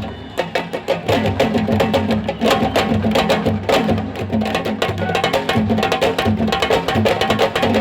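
Drum-led music with fast, dense drum strokes over a repeating low pattern.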